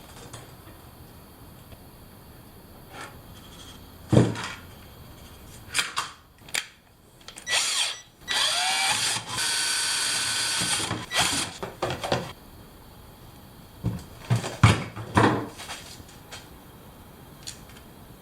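Power drill running for about three seconds after a short burst, its motor whining up in pitch as it starts; handling knocks and clatter come before and after it.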